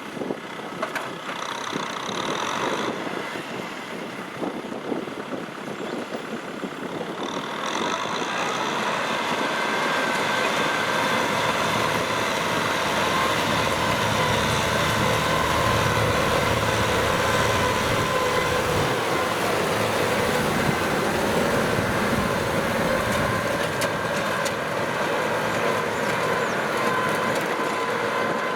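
Kubota M6040SU farm tractor's diesel engine running under load while plowing, louder from about eight seconds in, with a steady whine over the engine noise.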